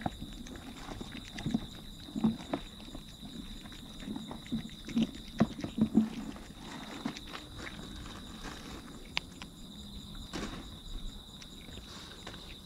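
Cats crunching and chewing dry kibble close by, in uneven bursts of small crunches that are busiest in the first half. A steady high insect trill goes on underneath.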